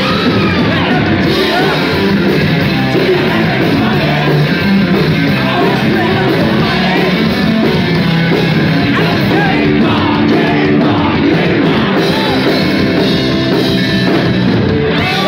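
Live rock band playing loudly: electric guitars, bass and drums, with the singer singing and yelling into a microphone.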